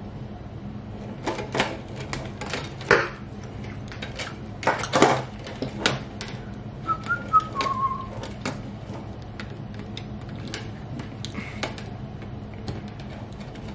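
Sharp clicks and snaps of a wire stripper biting and pulling insulation off small wires, with wire handling, loudest in the first half. About seven seconds in, a person whistles a few short wavering notes. A low steady hum runs underneath.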